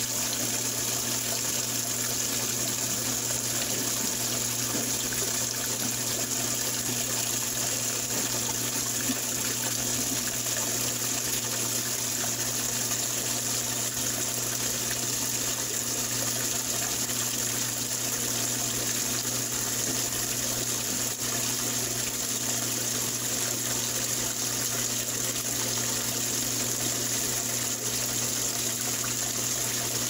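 Old top-loading washing machine filling its empty tub: a stream of water pours from the fill inlet and splashes into the basket with a steady rush. A steady low hum runs underneath.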